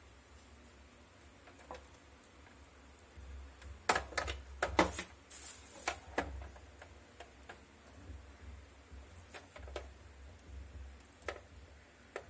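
Clear plastic bag crinkling and rustling, with sharp clicks and taps as a power cord is pulled out of it by hand, busiest about four to six seconds in, then a few scattered clicks, over a low steady hum.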